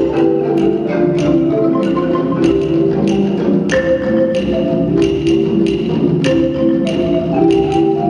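Marimba ensemble and tall hand drums playing together: repeating wooden-bar marimba patterns over sharp drum strokes on a steady beat.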